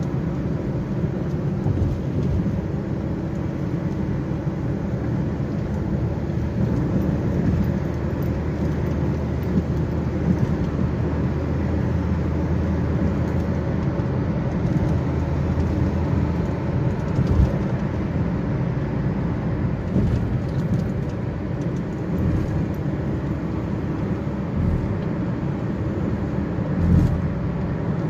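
Road and engine noise inside a moving car at highway speed: a steady low rumble of tyres and engine, with a few brief thumps in the second half.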